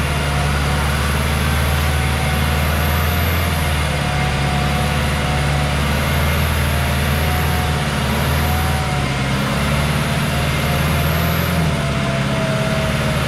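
Engine of an old Toyota Land Cruiser 40-series 4x4 running steadily under load as it crawls through deep mud. A thin whine wavers above the low drone.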